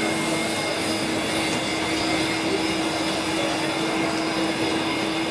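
Steady mechanical whir of a running motor, with a constant low hum through it and no change in level.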